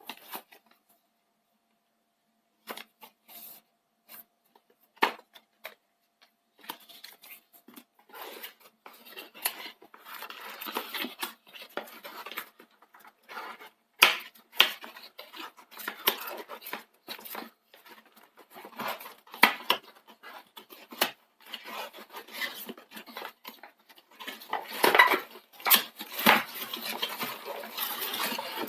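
Packaging being handled and opened: rustling of cardboard and plastic with irregular clicks and knocks as parts are taken out and set down.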